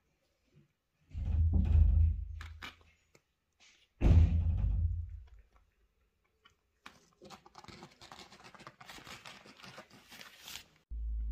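Two dull thumps, about a second in and about four seconds in, then several seconds of crackly scratching and rustling as a kitten's claws catch on the nylon fabric and mesh of a playpen wall. The scratching stops shortly before the end.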